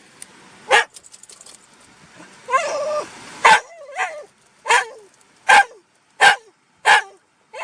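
Black Shiba Inu barking over and over, demanding treats: a single bark about a second in, a drawn-out whining yelp, then sharp barks roughly every three-quarters of a second.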